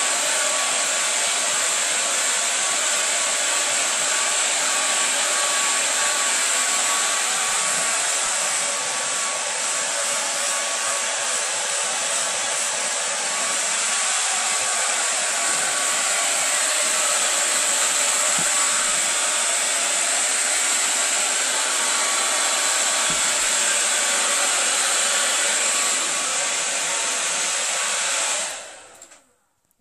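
Handheld hair dryer running steadily, a rush of air with a thin whine, blowing into a wet dog's long coat. It is switched off near the end.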